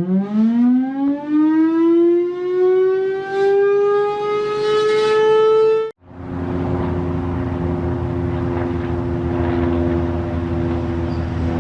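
Whelen WPS-2904 electronic outdoor warning siren starting its wail, its pitch rising steadily for about six seconds. It cuts off abruptly, then a steady lower two-note tone continues over a background of noise.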